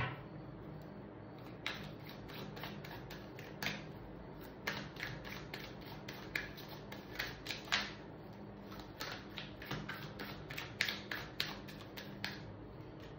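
Tarot cards being shuffled and handled by hand: many short, sharp card clicks and taps at irregular intervals, some in quick clusters.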